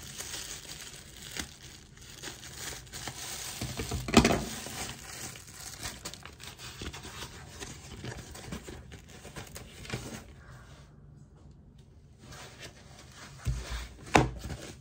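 A plastic mailer bag being cut open with scissors and torn, then the plastic wrapping of the item inside crinkling as it is handled. There is a loud crackle about four seconds in and a couple of knocks near the end.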